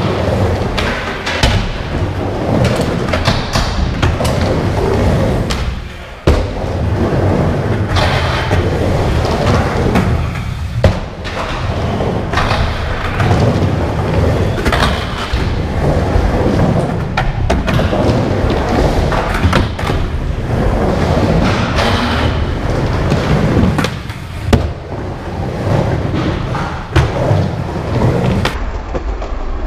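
Skateboard wheels rolling and rumbling around an indoor skate bowl, with thuds and sharp knocks as the board hits the bowl and its coping; the sharpest knocks come about six and eleven seconds in.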